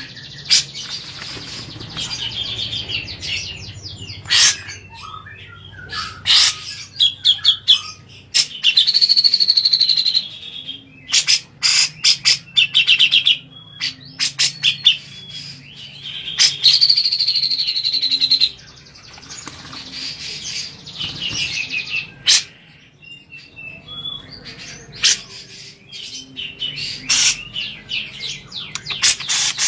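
Cucak jenggot (an Alophoixus bulbul) calling in bursts of sharp chattering notes, with a couple of longer trills, while it bathes in a cage water tray, with some splashing.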